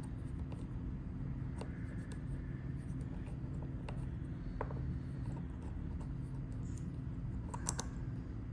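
Small clicks and light scraping as the parts of a customizable fidget toy are handled and fitted together, with a sharper click near the end. A steady low hum runs underneath.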